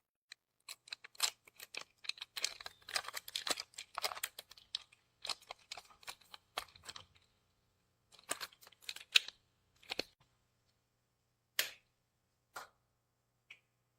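Parts of a bike repair stand being handled during assembly: a quick run of clicks and rattles for several seconds, another shorter run about eight seconds in, then a few separate clicks near the end.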